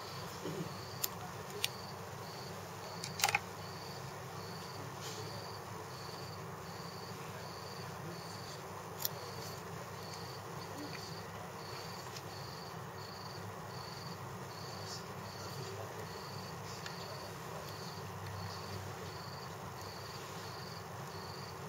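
Faint high-pitched chirps repeating at an even pace, with a few light sharp clicks in the first few seconds.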